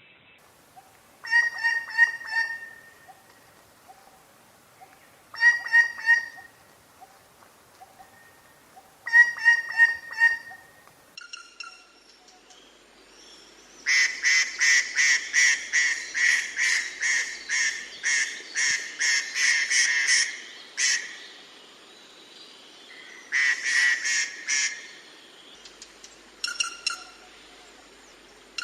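Treepie calling: several short bursts of rapid, harsh repeated notes, then in the middle a longer series of about three notes a second lasting some seven seconds, followed by two more short bursts.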